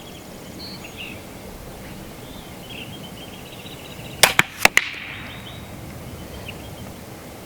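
A single shot from a .22 PCP air pistol, a Benjamin Marauder Pistol: a sharp crack about four seconds in, followed within half a second by a couple more clicks and a short hiss. Faint bird chirps sound in the background.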